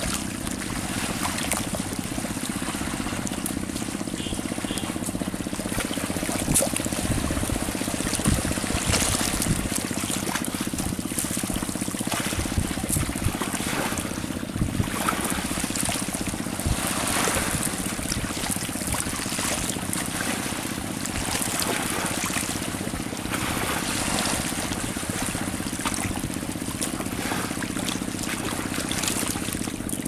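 River water lapping and splashing against a mud-and-grass bank, with a steady low drone running underneath.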